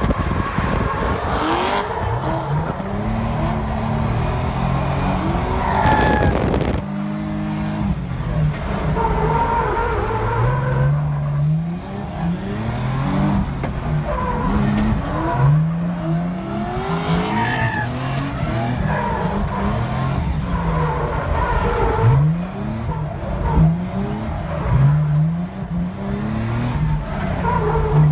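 Drift cars sliding in tandem: engines revved up and down over and over as the drivers work the throttle, with tyres squealing through the slides.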